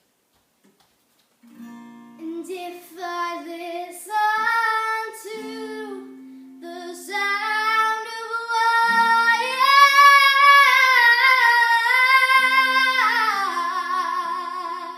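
A female voice singing a slow melody with long held notes, accompanied by plucked acoustic guitar, starting about a second and a half in.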